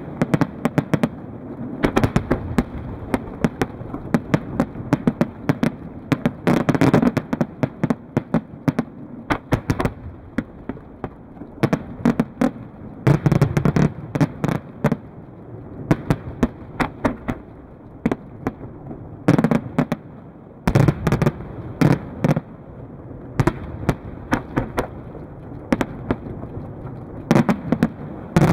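Aerial firework shells bursting in a long series of sharp bangs and pops, bunched in clusters every few seconds.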